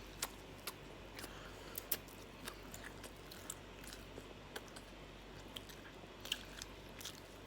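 Close-miked chewing and biting of waffles, with scattered sharp crunchy clicks and mouth sounds; the loudest come about two seconds in and again near the end.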